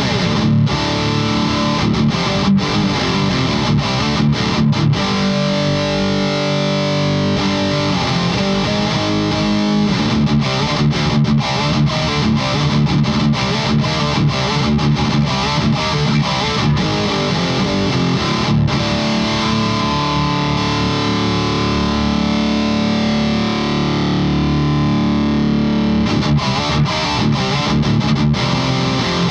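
Electric guitar played through a Fortin overdrive pedal, distorted riffs alternating with held chords. It starts suddenly and plays on without a break.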